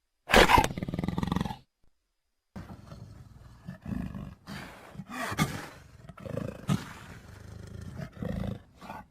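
Utahraptor creature sound effect: a short, loud roar-like call lasting about a second and a half, then after a brief pause a longer string of lower calls that swell and fade several times.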